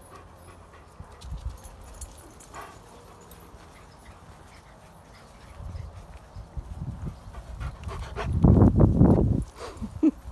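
Irish Setter puppies and dogs playing, with low scuffling and a loud burst of dog vocalising about eight seconds in that lasts over a second, then a brief whimper near the end.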